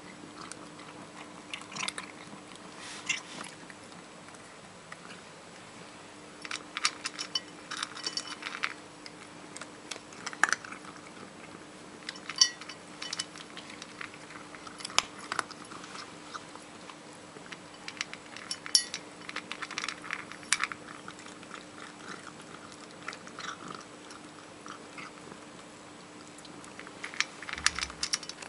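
A cat eating from a stainless steel bowl: chewing and crunching its food in irregular clusters of sharp clicks every second or two, over a steady low hum.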